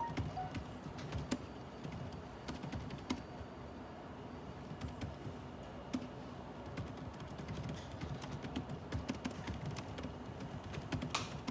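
Computer keyboard typing: irregular keystrokes, some bunched into quick runs, over a steady low room hum.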